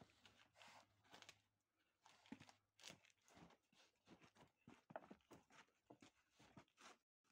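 Faint, irregular crunching and rustling from hands-on building work, with scattered light knocks.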